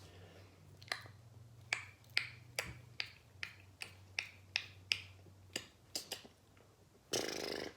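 Mouth-made imitation of a gun firing: a string of about fifteen sharp tongue clicks at roughly two to three a second, ending near the end with a short breathy burst.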